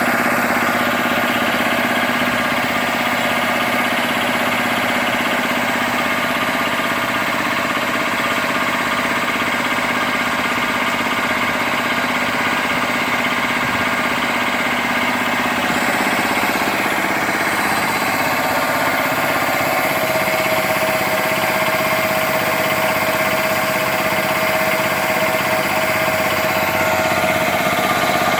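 1990 Bauer compressor running steadily, a continuous mechanical hum with a mid-pitched tone that grows stronger about two-thirds of the way through.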